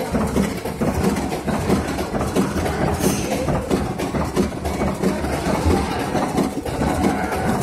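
Machinery running with a steady, rapid rhythmic clatter.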